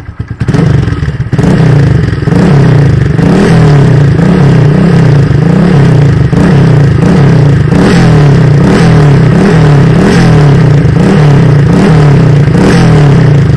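Motorcycle engine through a slip-on muffler with a dB-killer baffle insert fitted to quieten it, its throttle blipped over and over so the exhaust note rises and falls a little more than once a second. The exhaust is very loud.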